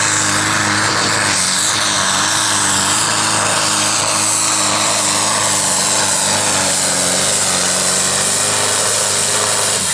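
Pulling tractor's engine running flat out under load during a pull: a loud, steady drone at high revs whose pitch wavers only slightly, with a hiss and whine high above it.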